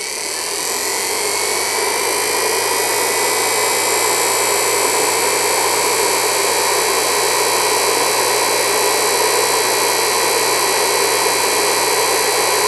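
Small universal motor running at full speed, coming up to speed in the first second and then holding steady: a high whine over a loud rushing hiss from the brushes and gearing, with a low hum underneath.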